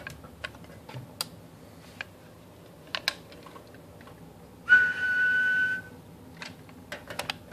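Scattered sharp clicks of switches and controls on bench radio gear. About five seconds in comes a steady high whistle-like tone lasting about a second, the loudest sound.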